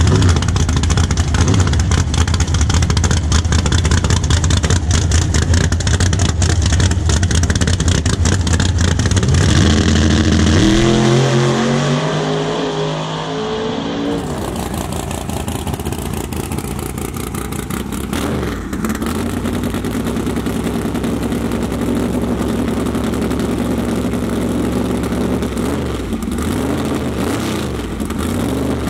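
Big-block Camaro drag car running loud and steady at the starting line, then launching about ten seconds in, its engine note climbing as it pulls away. After a cut, a big-block pickup's engine runs with a couple of revs.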